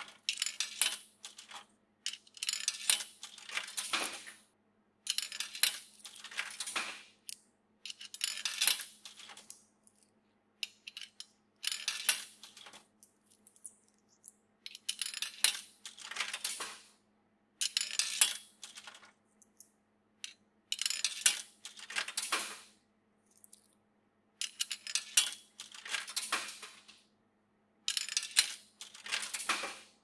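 Coins being fed one after another into the coin slot of a coffee vending machine. Each coin gives a short run of metallic clinks and rattles as it drops through the coin mechanism, about every three seconds, over a faint steady low hum.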